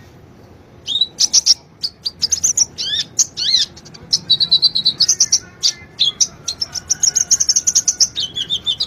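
Kolibri ninja (konin) sunbird singing: a rapid run of high-pitched chirps and trills, with a few falling sweeps, starting about a second in.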